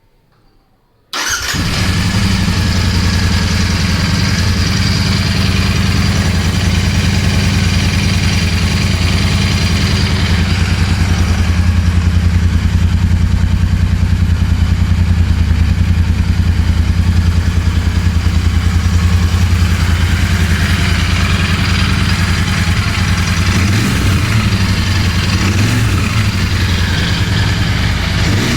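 Royal Enfield Continental GT 650's 648 cc parallel-twin engine starting up about a second in, then idling steadily through its stock exhaust.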